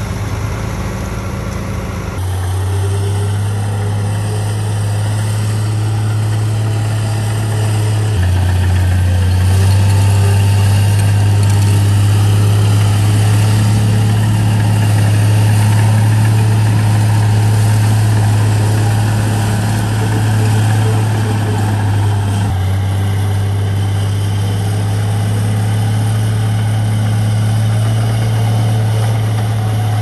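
Heavy construction machine's diesel engine running steadily with a deep drone. The engine note shifts abruptly a few times, about 2, 8 and 22 seconds in.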